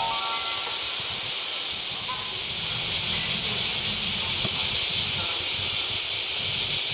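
Dense chorus of summer cicadas as a steady high hiss. The last notes of a short electronic station chime melody end about half a second in. From about two and a half seconds in, the low rumble of an approaching JR West 223/225 series electric train grows louder.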